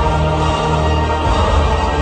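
Background music, orchestral in character, with sustained chords over a steady low bass.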